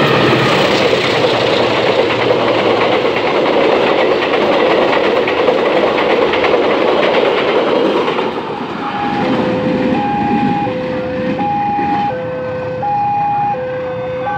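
Passenger train passing close by at speed, wheels clattering over the rail joints, until the last car goes by about eight seconds in. After that the level-crossing alarm is heard plainly, ringing a repeating high-low two-tone signal that warns the crossing is closed.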